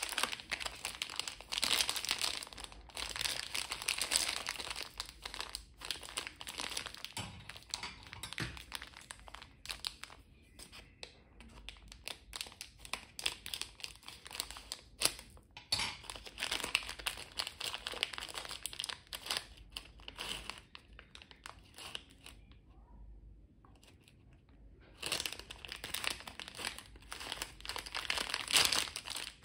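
Plastic candy wrapper crinkling and rustling as it is handled, mainly the packet of a Sour Punk candy stick, in irregular crackly runs with a quiet lull about three-quarters of the way through.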